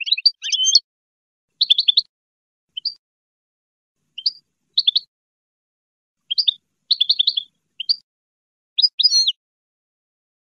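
European goldfinch singing: short bursts of quick, high twittering notes separated by brief pauses.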